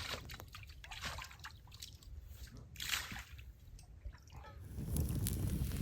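Water splashing and sloshing in irregular bursts, then a louder, steadier low rumble near the end.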